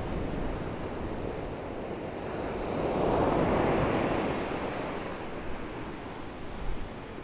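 Ocean surf breaking and washing up a sandy beach, the rush swelling to its loudest about three to four seconds in and then easing off. Wind buffets the microphone underneath.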